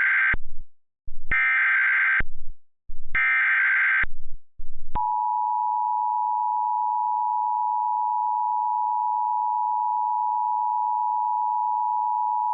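Emergency Alert System SAME header: bursts of digital data tones, about a second each, followed about five seconds in by the steady two-tone EAS attention signal (853 and 960 Hz).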